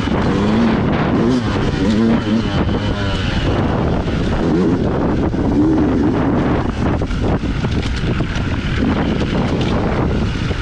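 Dirt bike engine on a trail ride, its pitch rising and falling over and over as the throttle is worked, with wind buffeting the microphone and scattered knocks from the rough ground.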